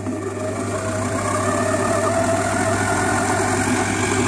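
SilverCrest Monsieur Cuisine Plus kitchen machine running on its dough-kneading program: the motor hums steadily while the blade churns dough in the stainless steel bowl.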